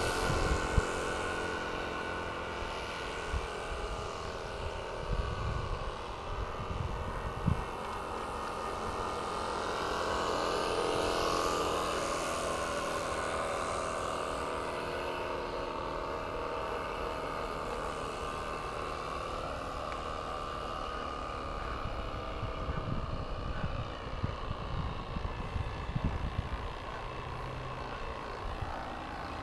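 Live-steam model speed boat's small steam engine and propeller running at speed, a steady mechanical whir with several held tones. It is loudest at the start, swells again around eleven seconds in, then fades as the boat moves off. Low bumps from wind on the microphone come through, most often near the end.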